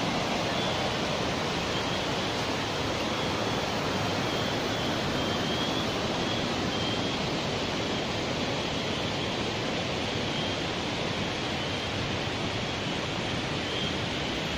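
A shallow, rocky river rushing over stones: a steady, even sound of flowing water.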